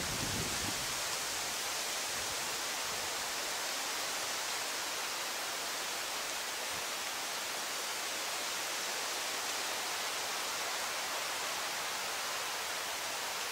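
A steady, even hiss with no distinct events, with a brief low rumble in the first second.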